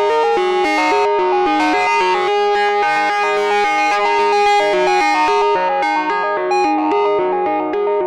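Empress Effects ZOIA EuroBuro Eurorack module playing a quick sequenced melody of short, plucked-sounding notes that step to a new pitch several times a second, at a steady level.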